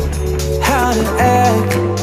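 Pop song playing as background music, with sustained notes and a beat, and a short sliding melodic phrase in the first second.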